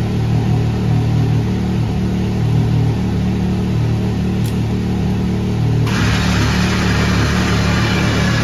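Side-by-side UTV's engine idling with a steady low hum. About six seconds in, a cordless drill-driver starts running on top of it with a loud whirring hiss.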